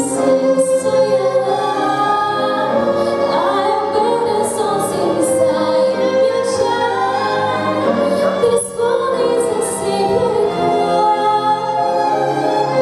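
Singing voices with a school orchestra accompaniment, mostly long held notes, with a short break in the sound about eight and a half seconds in.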